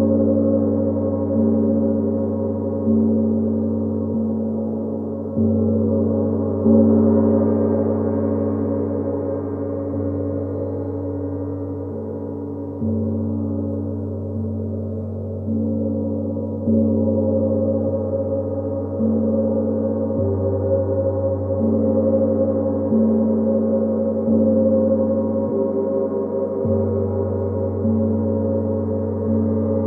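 A deep-toned gong struck softly over and over, a new stroke every one to two seconds or so, each one swelling a steady, sustained ring that never dies away between strokes.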